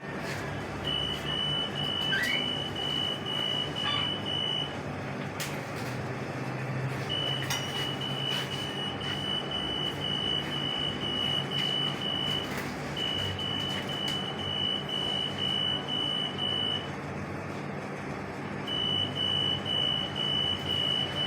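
Acousto-magnetic (58 kHz) EAS anti-theft gate alarm beeping, a high-pitched quick train of beeps in four runs of several seconds each with short pauses between, over steady shop and street noise. The alarm is the gate signalling a detected security tag.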